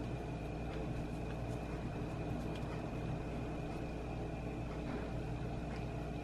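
Steady low hum with a faint high-pitched whine over it, and a few faint soft clicks.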